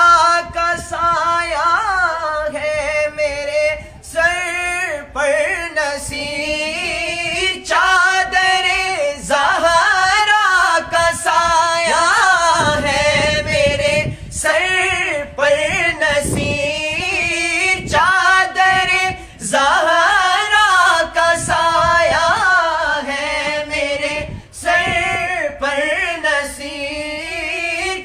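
Two male voices singing an Urdu naat, a devotional poem in praise of the Prophet Muhammad, a cappella with no instruments. The lines are long and ornamented, the pitch winding up and down within each held phrase, with short breaks between phrases.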